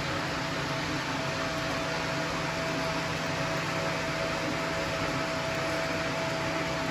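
Steady whirring hum of a running machine, with one constant mid-pitched tone held throughout.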